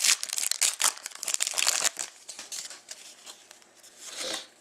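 Trading-card packaging being torn open and crinkled: a dense crackle for about two seconds, then quieter rustling and one more short crinkle near the end.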